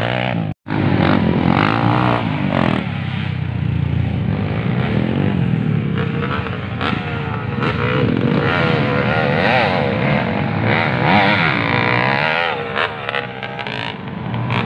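Several dirt bike engines revving up and down as the bikes ride past on a dirt race track, their pitches rising and falling over one another. The sound cuts out completely for an instant just after the start.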